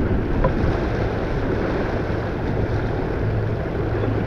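Steady wind rushing over the microphone, with water rushing along the hull of a sailing yacht under way.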